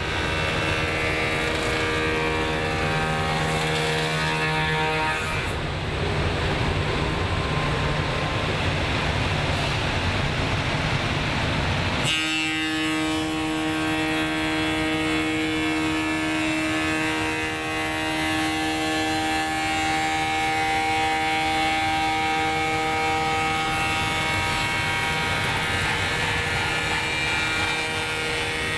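CNC machine's spindle spinning a bulbous 'pineapple' cutter and machining the back of a willow cricket bat, a steady whine over the noise of the cut. The sound changes abruptly about twelve seconds in, to a stronger, steady whine.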